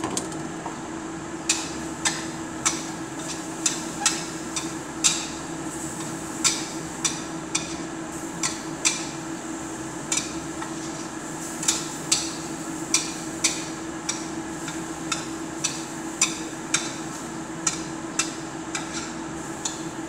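Spatula clanking and scraping against a wok during stir-frying: sharp clanks at uneven intervals, about one or two a second, over a steady hum.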